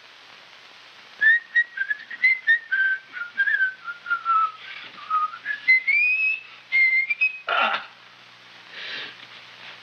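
A man whistling a tune, a single clear note line that moves in short steps, dips and then climbs higher near the end. A short rush of noise follows the whistling.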